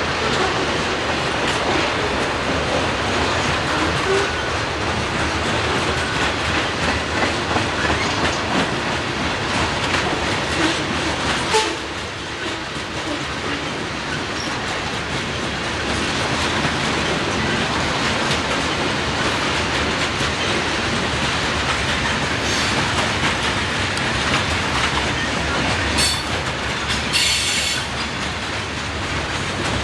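A freight train rolling past close by: a steady rumble of steel wheels on rail, with a rhythmic clickety-clack over rail joints and sharper clacks now and then, a few louder ones near the end.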